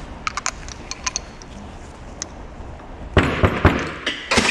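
Small metal parts of a high-pressure rotary nozzle being handled at a workbench: a few light clicks early on, then louder knocking and scraping about three seconds in and again near the end as a part is worked into the nozzle housing.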